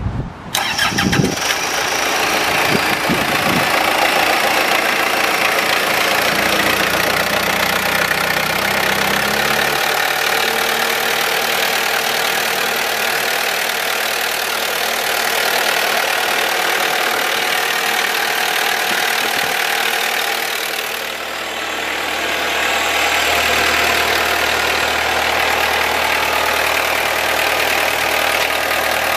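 Cummins diesel engine of a Lay-Mor SweepMaster 8C sweeper cranking briefly and catching, then idling steadily. Its idle note shifts and settles about ten seconds in.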